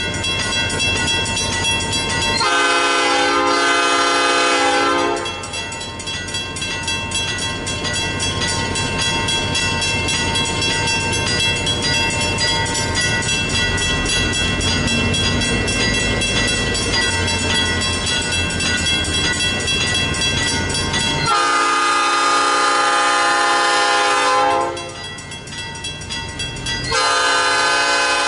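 The air horn of EMD GP9 diesel locomotive L&N 411 sounds three blasts as the excursion train approaches: one about 2.5 seconds in lasting nearly three seconds, a longer one about three seconds long near the twenty-second mark, and a third starting just before the end. Between the blasts the locomotive's engine and the train's movement give a steady rumble.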